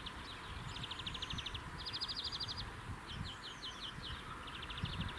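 Small songbirds singing: several rapid trills of about half a second and short chirps, varying in pitch, over a low background rumble.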